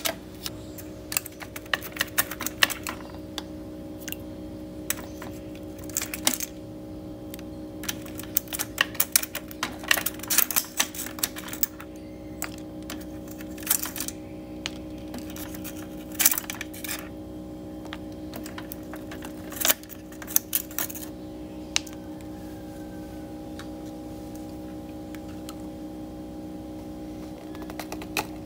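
Ice cubes being cracked out of a plastic ice tray and dropped into a plastic cup of coffee: a long run of sharp clicks and clatters that thins out after about twenty seconds. A steady low hum runs underneath.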